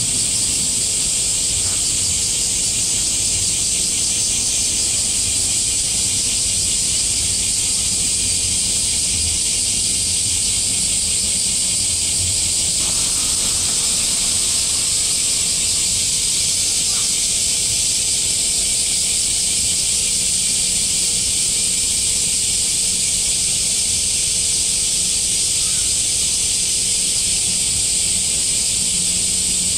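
Cicadas droning in a continuous, steady high-pitched chorus, with a low rumble underneath.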